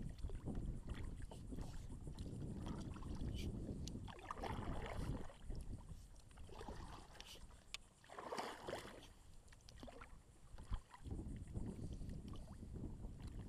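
Kayak paddles dipping and pulling through the water, with several swishing paddle strokes and a few small knocks, over a low wind rumble on the microphone.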